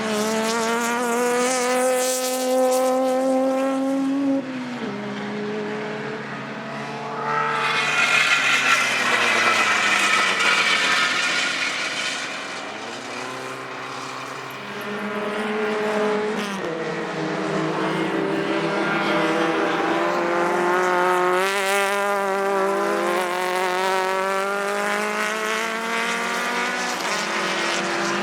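Racing car engines at full throttle on a circuit: one engine climbs in pitch and drops sharply at a gear change about four seconds in, a loud pass-by follows around eight to eleven seconds, then more cars accelerate with rising engine notes through the rest.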